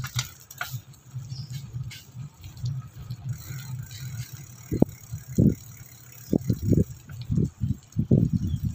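Riding noise of a bicycle heard from the bike itself: a steady low rumble of wind and tyres on concrete, with irregular low thumps and rattles starting about five seconds in.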